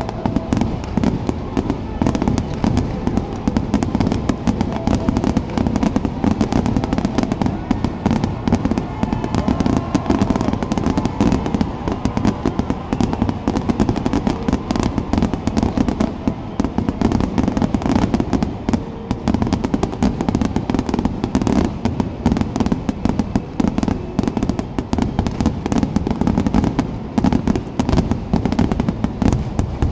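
Aerial fireworks bursting in a dense, continuous barrage, the explosions following each other too fast to separate, with no pauses.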